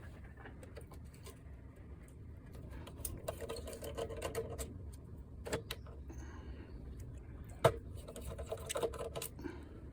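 Hand screwdriver backing screws out of a PlayStation 5's casing. There are two stretches of fast rattling, around three to five seconds in and again around eight to nine, with scattered small clicks. A sharp click just before eight seconds is the loudest sound.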